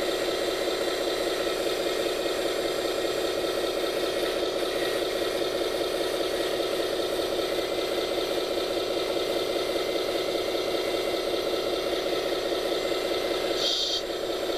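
Radio-controlled scale construction machine's motor and drivetrain running steadily, with a rattle. A brief higher-pitched sound near the end, after which it runs a little quieter.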